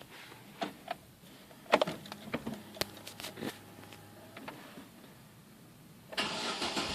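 A few sharp clicks and clunks, then a car engine starts about six seconds in and keeps running.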